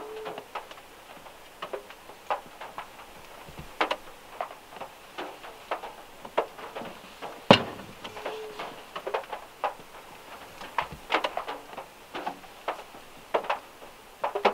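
Raindrops falling from overhanging trees onto the car's roof, heard from inside the small car: separate sharp taps at uneven intervals, the loudest about seven and a half seconds in.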